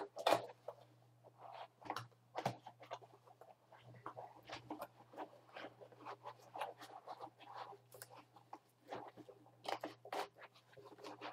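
Cardboard box and crumpled wrapping being rummaged by hand: irregular rustling, crinkling and small knocks of cardboard inserts and paper being moved about.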